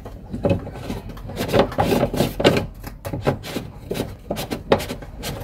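Irregular plastic clicks, knocks and scraping as a car's fuel pump module is pushed and worked by hand into its seat in the fuel tank opening.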